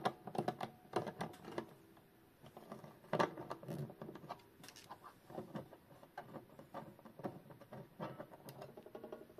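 Faint, irregular clicks, taps and scrapes of small metal clock parts and hand tools being handled as a clock movement is taken apart. They come thickest in the first second and a half, with one louder knock about three seconds in, then thin out.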